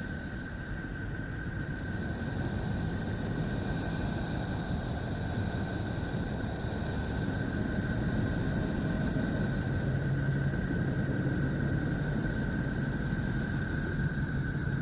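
Sonification said to be the sound of Neptune, electromagnetic emissions from space converted by NASA into audible sound: a strange, steady, noisy drone with two thin high tones held over it and a low hum coming in about two-thirds of the way through.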